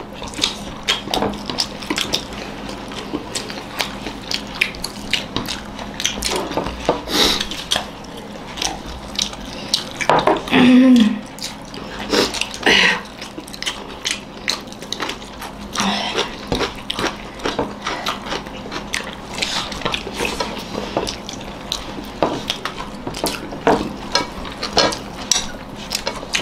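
Close-up eating sounds of several people eating rice and pickles with their hands: chewing and lip smacks as many small irregular clicks, with fingers working food on plates. A brief voiced sound about ten seconds in.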